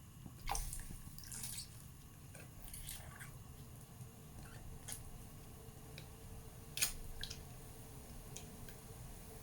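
Quiet kitchen sounds at a pot of gulai broth: scattered small clicks and knocks, the sharpest about seven seconds in, with dripping liquid as packaged coconut milk is poured in.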